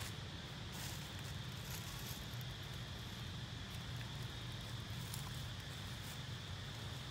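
Steady outdoor background: a low rumble and a thin, steady high-pitched drone, with a few faint clicks now and then.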